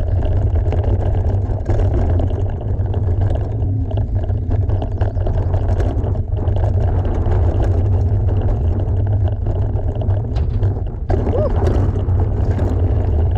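Wind rumble on the microphone of a mountain bike's camera while riding down a trail, a steady low rush, with the tyres rolling over dirt and scattered clicks and rattles from the bike.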